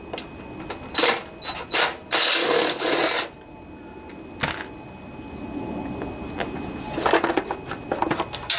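Hand socket ratchet turning a bolt, with a fast run of ratchet clicks about two seconds in, and scattered metal clinks of the socket and tools.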